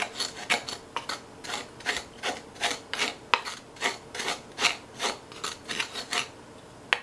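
Old-fashioned hand flour sifter being worked, its wire scraping over the mesh in even rasping strokes about two and a half a second as flour is sifted a second time. The strokes stop about six seconds in, and a single sharp click follows near the end.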